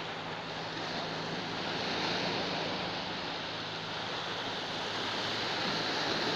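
Sea surf washing in and breaking against shoreline rocks, a steady rush that swells about two seconds in and again near the end.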